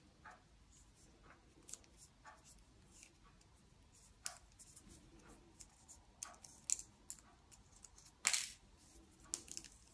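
Faint scattered clicks and light rustles of a 2 mm crochet hook working yarn, with one sharper tick about eight seconds in as the hands handle the stitch marker.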